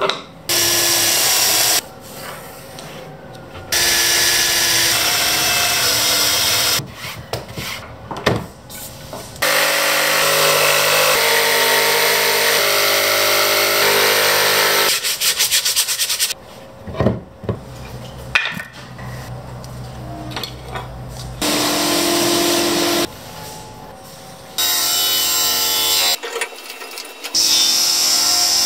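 Power saws cutting plywood in several loud stretches of a few seconds each, starting and stopping abruptly: a Bosch jigsaw with a steady pitched drone through the middle, and a Hammer sliding table saw near the end. Quieter handling sounds fill the gaps between.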